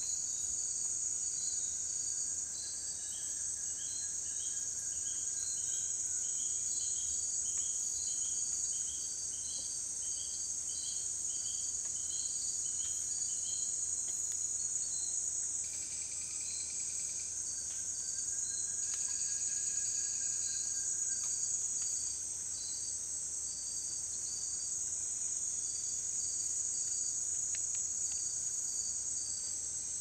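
Night insect chorus of crickets and katydids: a dense, steady, high-pitched trill, overlaid with short chirps repeating about twice a second.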